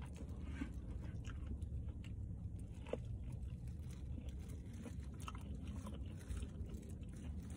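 A person chewing and biting food, okra and mackerel, close to the microphone: faint, scattered soft clicks and crunches over a low steady hum.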